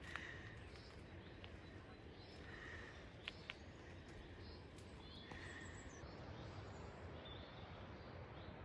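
Faint outdoor ambience with a few short, distant bird calls about every two and a half seconds, and two small clicks a little past the middle.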